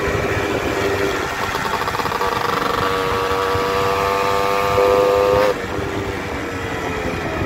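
Motorcycle engine running, with a sustained droning tone that rises slightly in pitch and stops abruptly about five and a half seconds in.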